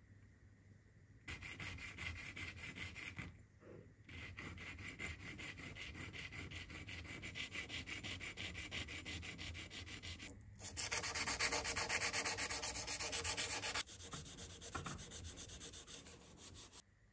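Brass part rubbed back and forth on abrasive paper in quick, even strokes, flat-sanding its hex face; the scraping starts about a second in, pauses briefly twice, and gets louder and brighter for a few seconds after the second pause. Near the end a green abrasive pad is rubbed over the brass.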